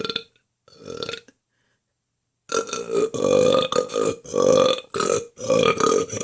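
A woman burping on purpose: a short burp at the start and another about a second in, then after a pause a long string of drawn-out burps with brief breaks between them.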